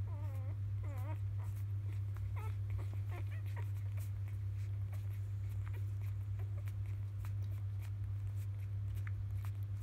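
Three-day-old Labrador retriever puppies squeaking while nursing: a couple of wavering squeaks in the first second, then shorter squeaks and soft clicks that thin out after about four seconds. A steady low hum runs underneath.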